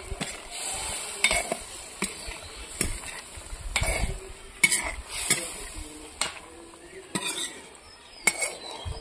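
A metal ladle stirring curry in a metal wok, scraping and knocking against the pan about once a second, over a steady sizzle of the simmering curry.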